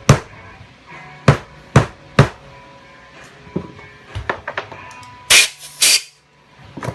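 Hammer tapping a new shaft seal flush into a Saginaw power steering pump housing. Four sharp blows come in the first two seconds or so, then lighter taps and clicks, two louder, longer knocks about five and a half seconds in, and one more blow at the end.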